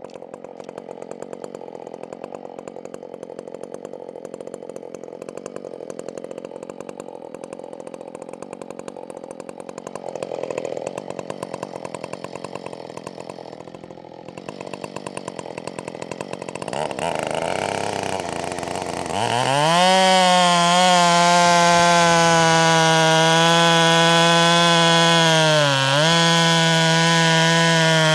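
Husqvarna 572XP chainsaw idling with an even, rapid firing tick, then revving up over a couple of seconds about two-thirds of the way through and running loud and steady at full throttle. The pitch dips briefly near the end.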